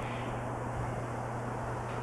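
Steady low hum under an even background hiss, with no distinct events.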